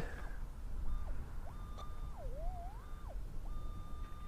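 Metal detector's target tone over a buried signal reading 23: a single tone that glides up to a high pitch, holds, drops and climbs again several times, then holds steady for over a second near the end.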